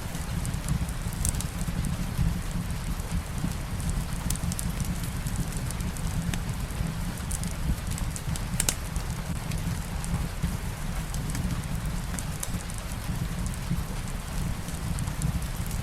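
Steady soft rain with a low rumble beneath it, and the scattered small crackles and pops of a wood fire.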